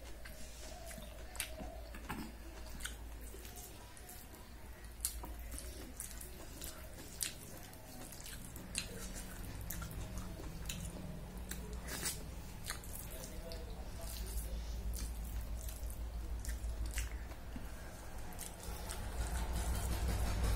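Close-up eating sounds of a person eating khichdi by hand: chewing, with many short wet mouth clicks and smacks, and soft squishing as fingers mix the rice and fried vegetables.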